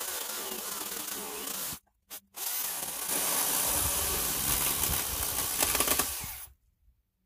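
Electric chainsaw cutting through a log. It stops briefly about two seconds in, then cuts again. Near the end a few sharp, louder strikes come as the chain hits barbed wire grown into the wood, and the saw stops suddenly.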